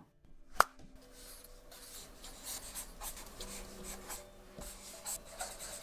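Black marker writing on a sheet of paper: a run of short, scratchy strokes as letters are drawn. A single sharp click comes about half a second in.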